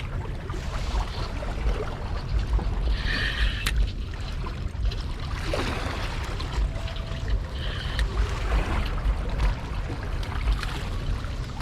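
Water sloshing and trickling, over a steady low rumble. A sharp click comes a little before the middle.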